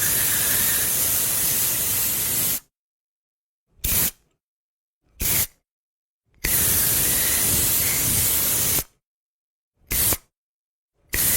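Aerosol spray can hissing in bursts. A long spray of about two and a half seconds cuts off, two short puffs follow, then another long spray and two more short puffs, with silence between each.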